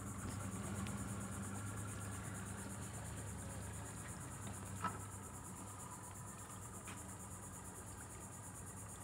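Steady high-pitched insect buzzing, with a low steady hum beneath it and one faint click about five seconds in.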